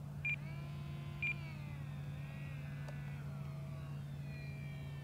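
Faint whine of a small RC plane's propeller and brushless motor, several pitches sliding slowly downward as it glides in to land with the throttle cut. Two short high beeps about a second apart near the start, over a steady low hum.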